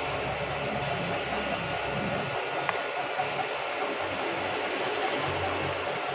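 Milling machine running, its drill bit cutting into a steel ball hammer head under oil: a steady mechanical whir with a few faint ticks about halfway through.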